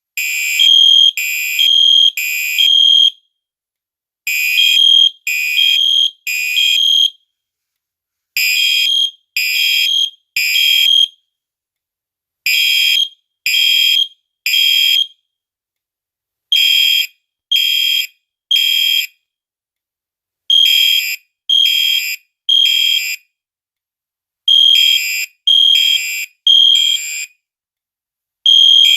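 Gentex and Genesis fire alarm horns sounding the temporal-3 evacuation pattern: three short high-pitched blasts, then a pause, repeating about every four seconds.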